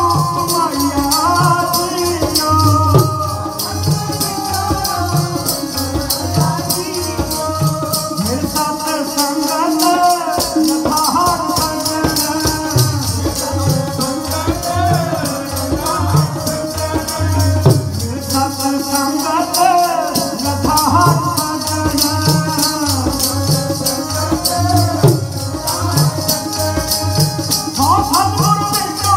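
Sikh kirtan: a man sings over harmonium accompaniment, with tabla keeping a steady, fast rhythm of low bass strokes and sharp treble strokes.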